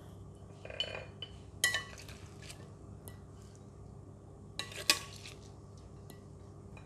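Stainless steel serving tongs clinking against a ceramic plate and a glass bowl while salad is served out, a handful of sharp clinks, the loudest about a second and a half in and just before five seconds. A low steady hum lies underneath.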